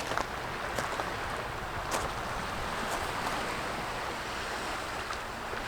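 Steady wash of ocean surf mixed with wind, swelling slightly in the middle, with a few faint clicks.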